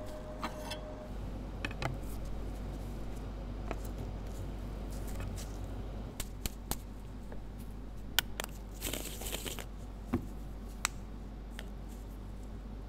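An espresso grinder finishing its run and stopping about a second in, then scattered clicks and taps of a steel portafilter being handled and set down, with a short scratchy rustle a little past the middle, over a steady low hum.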